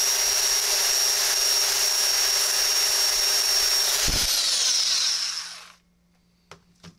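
Handheld belt sander grinding a flat spot onto a black iron pipe tee: a harsh rasp with a steady high whine, switched off about four seconds in and winding down with a falling pitch. Two light clicks follow near the end.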